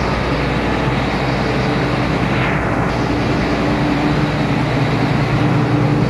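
John Deere combine's engine running steadily at close range, a loud even drone with a low hum; it is running well with its new pump parts fitted.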